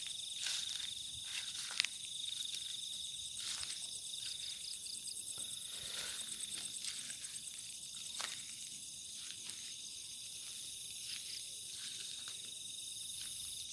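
Night chorus of crickets and other insects trilling steadily at a high pitch, over soft irregular rustling of footsteps moving through undergrowth, with one sharp click about two seconds in.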